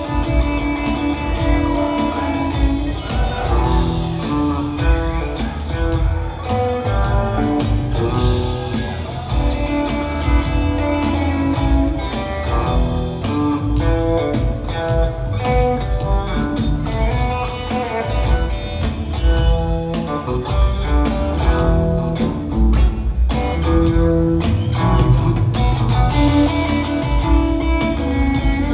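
Live rock trio of electric guitar, bass guitar and drums playing an instrumental jam between sung verses, with the guitar carrying the melody over a steady groove.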